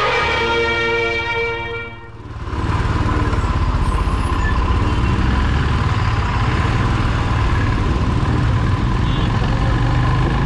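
Background music ending about two seconds in, then a vehicle engine running steadily with road rumble and a faint steady whine.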